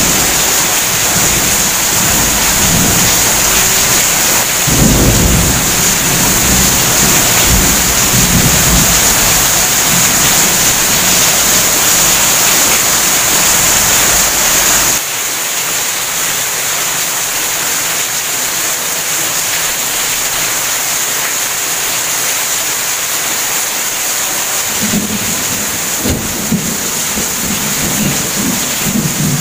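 Heavy rain pouring steadily during a thunderstorm, with low rolling rumbles of thunder through the first half that stop abruptly about halfway through, and more rumbles near the end.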